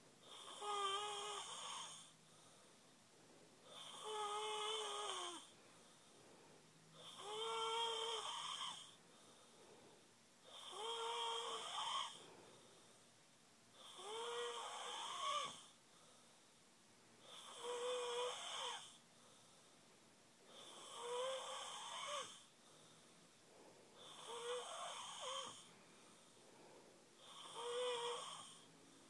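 Someone snoring steadily: nine long snores, about one every three and a half seconds, each with a pitched, wavering, duck-like tone over the rasp.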